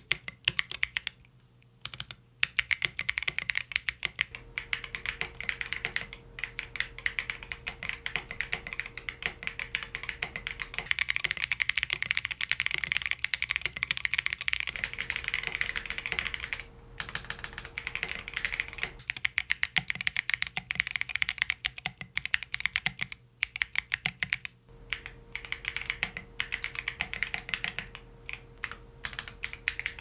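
Typing on a FROG MINI mechanical keyboard with full metal keycaps over Geon Clear switches: a fast, dense run of keystroke clacks, broken by a few short pauses.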